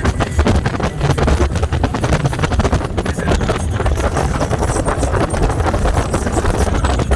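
Boat motor running with a steady low rumble, and wind buffeting the microphone.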